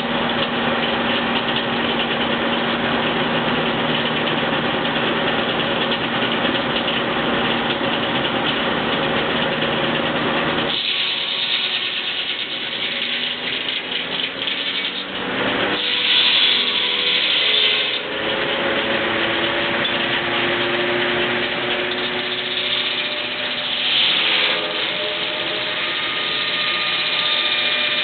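Rack saw-bench (a circular saw with a rack-fed carriage) running steadily, its sound changing about ten seconds in, with louder, harsher spells about halfway through and again near the end as the blade cuts through wood.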